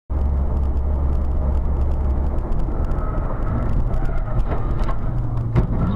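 Car driving, engine and road noise as a steady low rumble that changes character about halfway through, with a few sharp knocks near the end.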